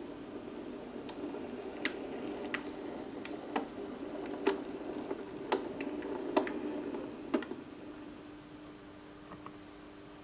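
Halling motor bogie of an H0m model locomotive humming steadily as it hauls a short train of white metal coaches, with sharp clicks from the wheels on the track, roughly one a second. The clicks stop about seven seconds in, while the motor hum carries on, a little quieter.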